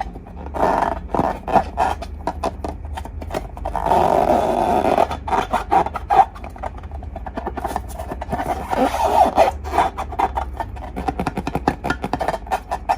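Slime being squished and stretched by hand: dense, irregular wet clicking and crackling, with a longer squelching stretch about four seconds in.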